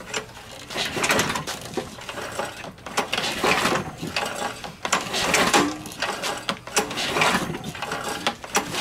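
Recoil starter of a 6.75 HP Briggs & Stratton pressure-washer engine pulled several times, the rope whirring out and the engine turning over without starting.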